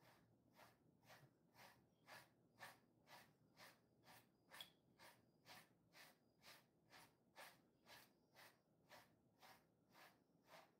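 A pet grooming brush drawn through a Jindo mix dog's coat in short, even strokes, about two a second. Each stroke is a faint, soft scratch.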